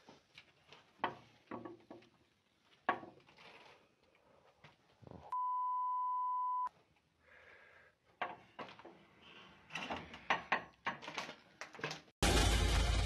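Scattered faint knocks and clatter, then a flat single-pitch censor bleep lasting about a second and a half midway, then more knocks. Near the end, loud music cuts in suddenly.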